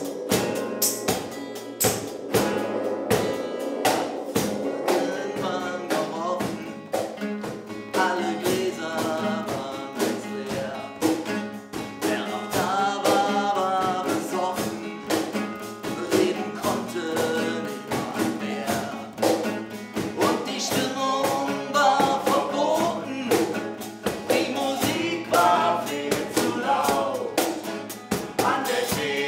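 A band playing a song: drum-kit beat under sustained instrument chords, with a singing voice coming in about six seconds in.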